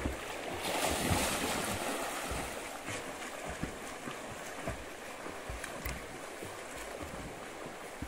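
Water splashing as people swim and wade in a shallow river, loudest about a second in, over a steady wash of moving water, with scattered low thumps on the microphone.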